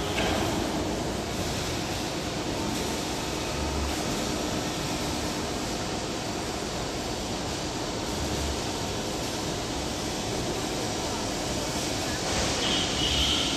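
CNC hydraulic press brake running: a steady hum over a haze of machine noise, with a high whine coming in briefly near the end.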